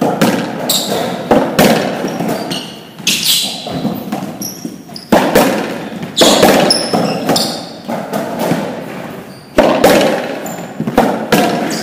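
Racquetball rally: the hollow ball cracking off racquets and the court walls again and again, a sharp hit every half second to a second or so, each one echoing in the enclosed court. Short high squeaks of sneakers on the court floor come between the hits.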